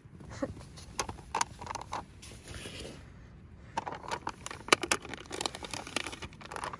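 Peel-off lid being pulled off a plastic instant porridge pot, with crinkling, crackling and clicking handling sounds and one sharp click a little before the end.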